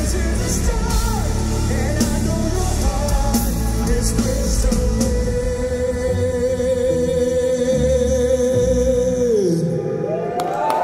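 Live metal band with male and female lead vocals: drums, bass and guitars under a single sung note held for about five seconds. Near the end the band stops and the held note falls away.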